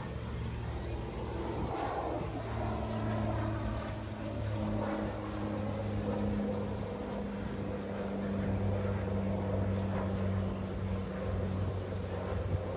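A distant engine droning steadily, its low hum holding one pitch throughout.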